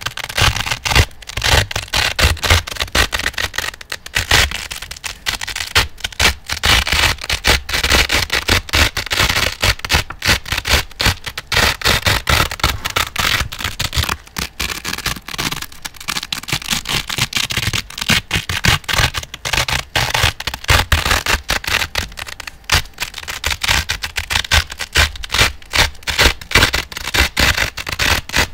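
Velcro hook-and-loop strips being pulled apart and pressed together close to the microphone: a crunchy, crackly ripping that goes on repeatedly with no real pauses.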